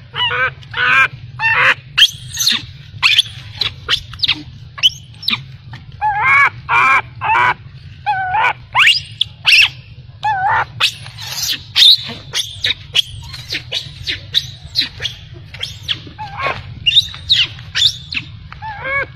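Baby macaque crying: many short, high, arching squeals and cries, often two or three a second, with a few brief pauses, over a steady low hum.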